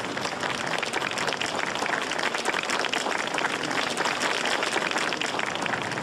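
A crowd applauding, many hands clapping steadily.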